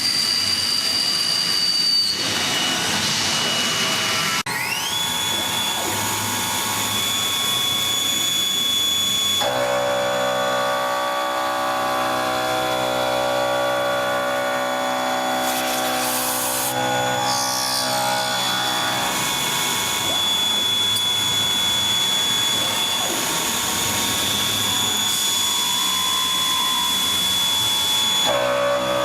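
Kinetic K4000 CNC table's milling spindle running with a steady high whine that rises in pitch about four seconds in and then holds. A layered ringing of several steady tones joins from about ten to nineteen seconds in and again near the end as the cutter works the part.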